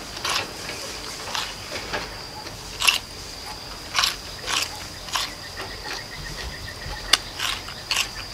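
Raw chayote being bitten into and chewed: crisp, irregular crunches, roughly one or two a second.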